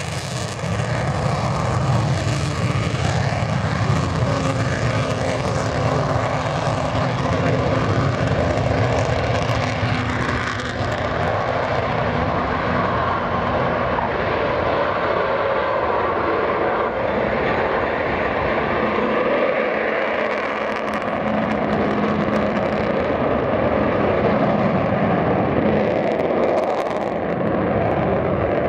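Avro Vulcan's four Rolls-Royce Olympus turbojets at takeoff power as the delta-wing bomber makes its takeoff run and climbs away: a loud, steady jet roar with a thin steady tone running through it.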